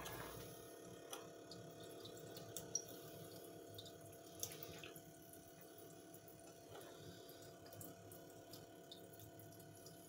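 Faint steady trickle of rinse water running from a plastic outlet tube into the sink drain through a cloth filter, with scattered small drips. Under it is a steady low hum from the small 12-volt water pump that circulates the water through the jars.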